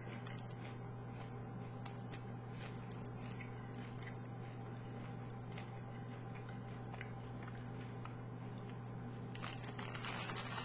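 Faint crunching and chewing of a crispy Hershey Gold candy bar, over a steady low hum; the crunching grows louder near the end.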